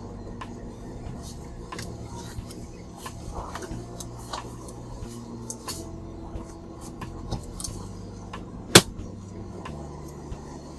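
Scattered light clicks and taps of small laptop parts and tools being handled, over a low steady hum, with one sharp, much louder click about nine seconds in.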